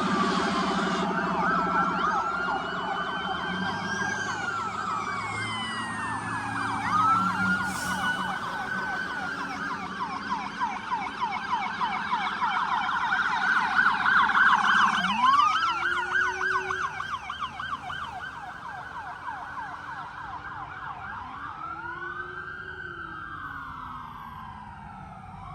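Several emergency vehicle sirens sounding at once, fast yelping sweeps layered over slower rising-and-falling wails. They are loudest about halfway through and fade near the end, leaving only slow wails.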